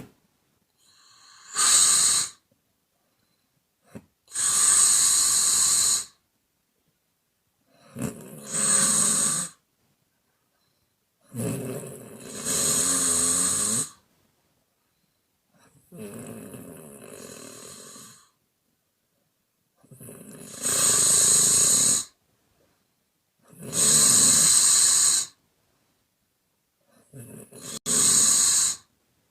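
A woman snoring with long, airy exhales and mouth-blowing. There are eight breaths in all, one every three to four seconds, with silence between them. One about halfway through is fainter.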